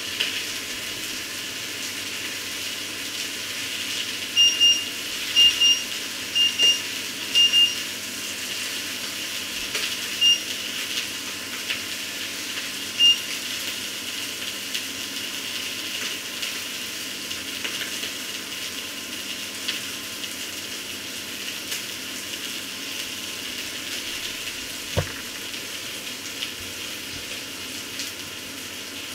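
Food sizzling steadily in a frying pan on the stove. Short high electronic beeps cut through it: four quick pairs a few seconds in, then two single beeps.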